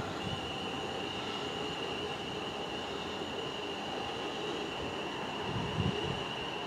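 South Western Railway Class 444 Desiro electric multiple unit pulling out of the platform, running with a steady high-pitched squealing tone over the rumble of the train. A low knock comes near the end.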